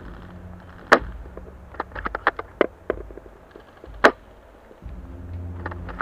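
Tokyo Marui VSR-10 G-Spec spring-powered bolt-action airsoft rifle firing twice, a sharp snap about a second in and another about four seconds in. Between the shots and again near the end comes a quick run of smaller metallic clicks as the bolt is cycled to recock.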